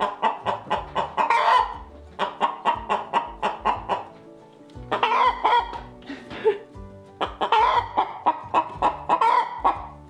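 Chickens clucking in quick runs of short notes, several groups broken by brief pauses, over soft background music.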